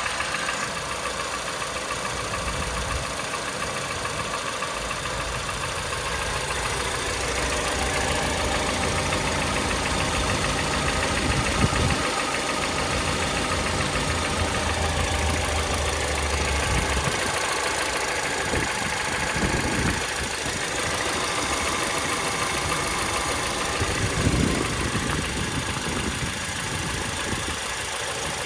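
Honda CR-V's 2.4-litre K24Z1 inline-four petrol engine running cold with a steady knock, a tuk-tuk-tuk: a common cold-engine knock of these 2.4 engines that goes away once warm.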